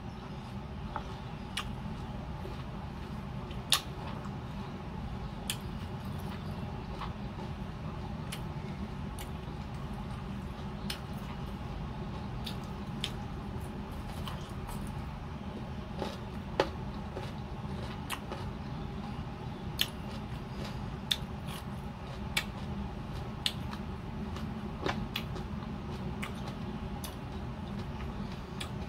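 Close-up eating of firm mango slices: scattered sharp crunches and mouth clicks from biting and chewing, over a steady low hum.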